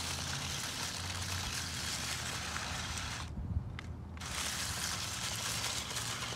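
Steady rushing hiss of wind on the microphone mixed with dry leaves rustling; the hiss thins out for about a second in the middle.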